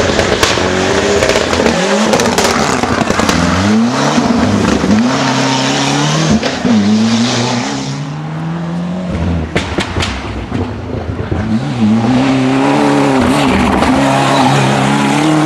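Ford Sierra Cosworth Group A rally car's turbocharged four-cylinder engine revving hard, its pitch climbing and dropping again and again through gear changes, with tyre and loose-surface noise. It eases off briefly about halfway through, then pulls hard again.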